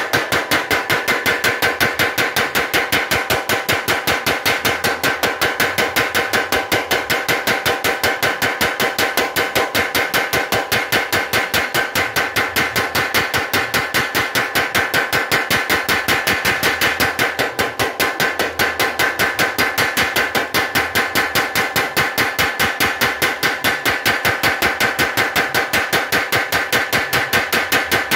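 Blacksmith's mechanical power hammer striking red-hot steel on its anvil in a fast, even rhythm of about five blows a second, each blow with a metallic ring.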